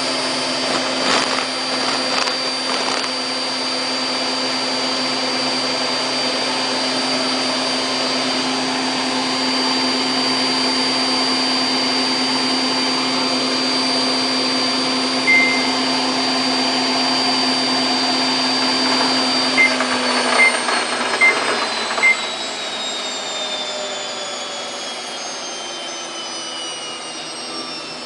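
Samsung WF8804RPA washing machine spinning at its top speed of 1400 rpm in the service-mode spin test, a steady machine whine. Partway through there is a single short beep, then four more beeps, and the drum begins to slow down, its whine falling steadily in pitch.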